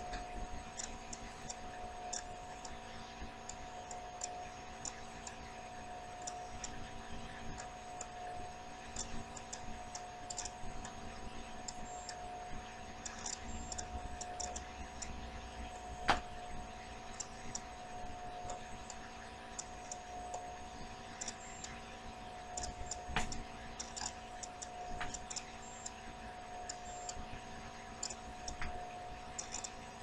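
Two sharp cracks from neck joints being self-adjusted, the first about halfway through and the second about seven seconds later. A steady humming tone and faint, irregular high ticking run underneath.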